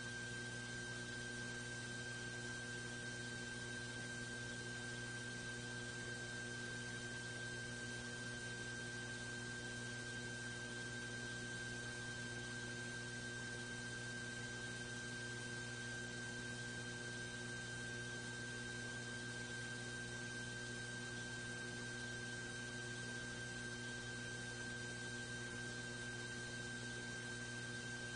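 Steady electrical mains hum with a faint high whine and hiss, unchanging throughout, with no other sound.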